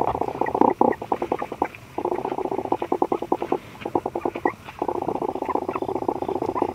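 Saint Bernard puppies making a fast pulsing patter, about a dozen beats a second, in runs of one to two seconds with short breaks.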